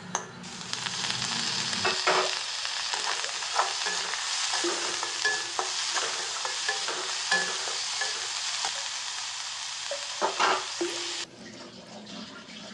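Chopped onion and garlic sizzling in hot oil in an aluminium kadai, with a metal slotted spatula clinking and scraping against the pan as it stirs. The sizzle starts about half a second in and falls away sharply near the end.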